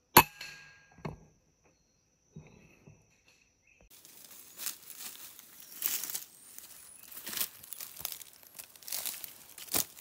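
A single sharp shot from a PCP air rifle right at the start, followed about a second later by a softer knock. From about four seconds in come footsteps crunching and rustling through dry leaf litter and undergrowth.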